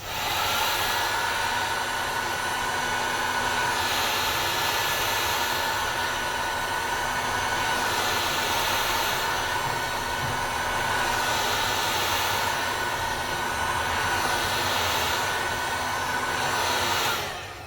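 Heat gun blowing hot air onto a Samsung Galaxy S20+ back glass to soften the adhesive, a steady rush of air with a whine in it. It switches on at the start and shuts off near the end.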